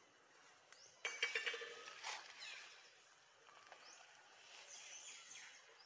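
High-pitched animal calls: a short squealing burst about a second in, then a falling chirp and a few faint high chirps.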